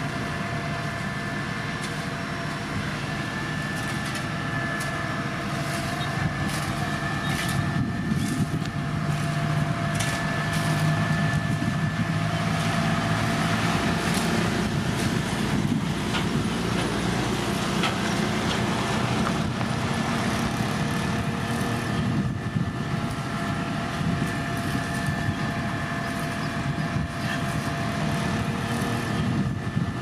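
Diesel engine of heavy road-construction machinery running steadily, louder through the middle, with a steady whine alongside and scattered clicks and rattles.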